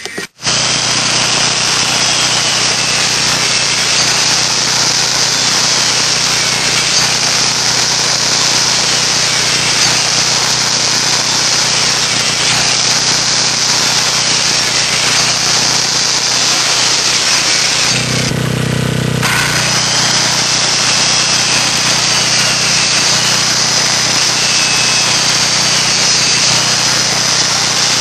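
Handheld circular saw running steadily and cutting into a heavy wooden timber, with a brief change in its sound about two-thirds of the way through.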